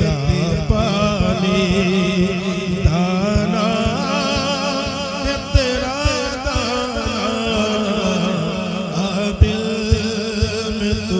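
Man singing a naat, a devotional Urdu poem, into a microphone over a PA, in a wavering, heavily ornamented melody over a steady low drone.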